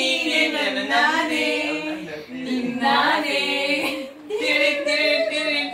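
A group of people singing a song together without instruments, women's voices to the fore, in held phrases with short breaks between lines.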